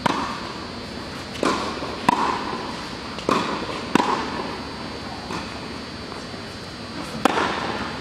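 Tennis ball struck by rackets and bouncing on the court during a baseline rally, a sharp knock every second or so, some in quick pairs of bounce then hit, each echoing in a large indoor tennis hall.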